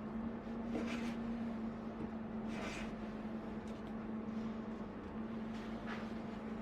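A few short scraping strokes of a hand tool working wood, the strongest about two and a half seconds in, over a steady low hum.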